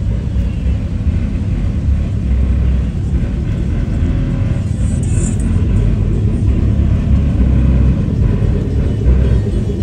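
A truck engine running close by with a loud, steady, deep rumble.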